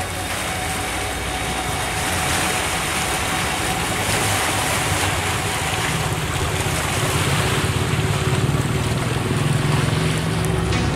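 Seaside outdoor ambience: steady wind and water noise, with a low, fluttering rumble that grows louder about halfway through.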